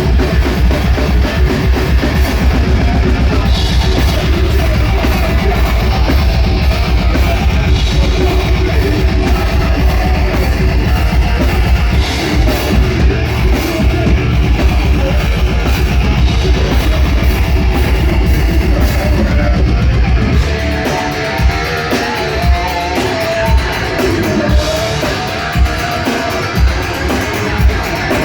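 Live heavy metal band playing: distorted electric guitars, bass and a drum kit going at full tilt. About twenty seconds in the dense low end drops away, leaving a guitar riff punctuated by single heavy drum hits about once a second.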